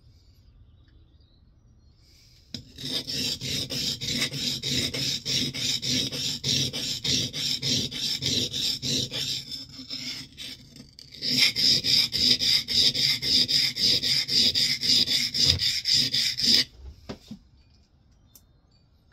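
Steel scrub plane iron, ground to a curved (cambered) edge, rubbed back and forth on a coarse Norton sharpening stone. A fast, even rhythm of rasping strokes, several a second, starts about three seconds in, pauses briefly near ten seconds, then resumes louder and stops about seventeen seconds in.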